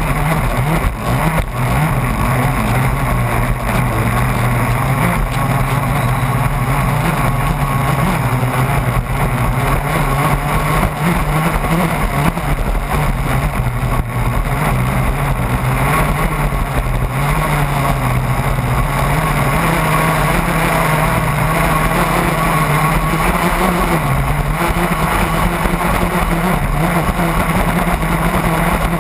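Radio-controlled racing catamaran's motor running at speed as a steady drone whose pitch wavers a little. Water and spray rush past the hull.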